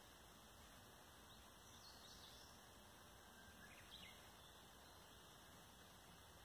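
Near silence: a faint steady hiss, with two faint, brief high bird chirps about two and four seconds in.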